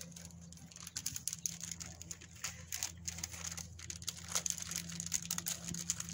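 Crinkling of a plastic cheese wrapper and light clicks of a knife blade as a block of cheese is sliced on the wrapper against a tiled counter, over a low steady hum.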